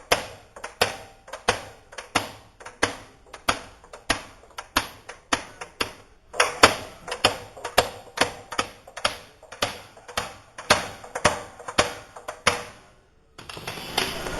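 Hand hammering on a wooden barrel's hoops to drive them down and tighten the staves: steady, evenly spaced strikes about two or three a second, stopping shortly before the end. A steady noise begins just after.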